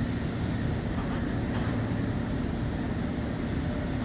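Steady low rumble of heavy diesel machinery running: fire apparatus pumping water and an excavator at work, with a faint steady hum over it.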